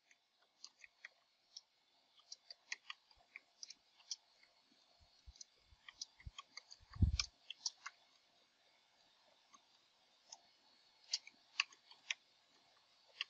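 Faint computer keyboard typing: irregular, quick keystroke clicks, with a louder, deeper thump about seven seconds in and a short pause before the typing picks up again.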